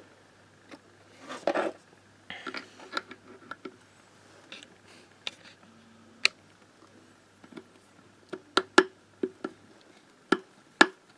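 Metal engine parts being handled and fitted on the bench: scattered clicks and light knocks, with a few sharp metallic ticks in the second half, as the balance-shaft gear is set on its timing marks.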